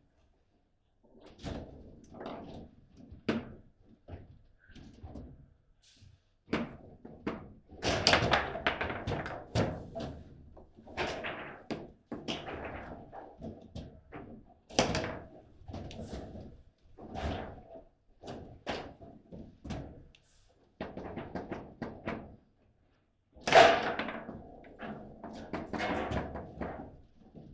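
Table football in play: quick, irregular knocks and thuds of the ball against the rod-mounted players and the table's sides, with a few louder slams. The loudest hit comes near the end.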